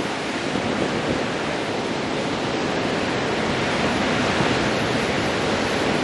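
Ocean surf breaking on a beach: a steady wash of white water that grows slightly louder toward the end.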